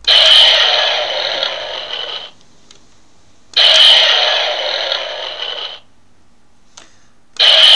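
Electronic sound effect from the DX Gabutyra toy's battery-powered sound unit, played through its small speaker each time the button on its back is pressed. It sounds three times, each burst starting suddenly and fading over about two seconds, with short quiet gaps between.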